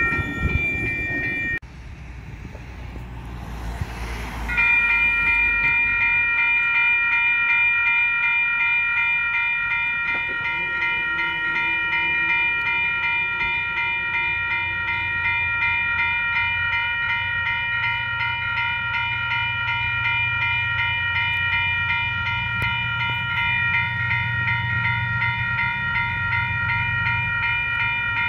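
Level crossing warning bells start suddenly about four seconds in and ring steadily. Underneath them, the low rumble of approaching diesel locomotives grows louder from about halfway through.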